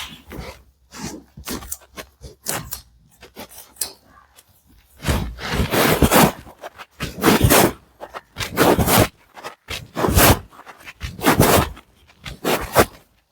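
A run of rhythmic scraping or rubbing strokes, about one every one and a half seconds from about five seconds in, with scattered softer rustles before them.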